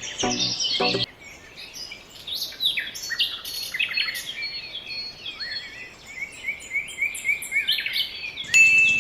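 Many small birds chirping and twittering together: a dense run of short, high, rising and falling calls. A pitched sound with several tones sounds for about the first second, and a sharper, louder high note comes in near the end.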